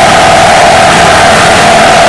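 Corded electric power saw running steadily at full speed as it cuts through a kitchen countertop. It makes a loud, unbroken whine over a rough cutting noise.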